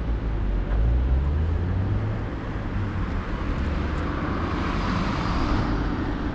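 Road traffic passing on a multi-lane urban highway: engines rumbling low, then the tyre noise of a passing vehicle swelling about four to six seconds in and fading.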